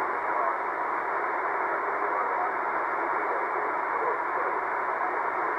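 Steady hiss and static from a C. Crane Skywave SSB2 shortwave receiver tuned to single-sideband, with faint, barely readable voices wavering under the noise.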